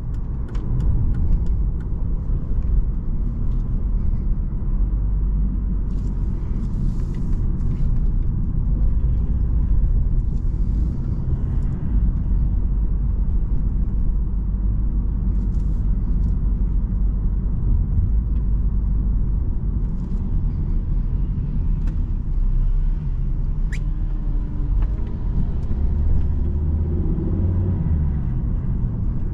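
Volvo S60 driving, heard from inside the cabin: a steady low rumble of engine and tyre noise on the road.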